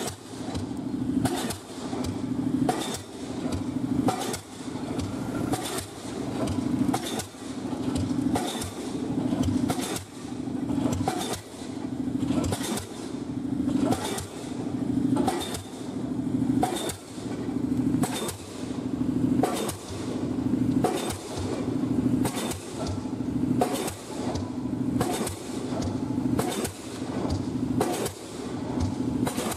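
Pile hammer on a crawler-crane pile rig driving concrete piles into the ground, striking in a steady rhythm about every second and a half, with the rig's engine running underneath.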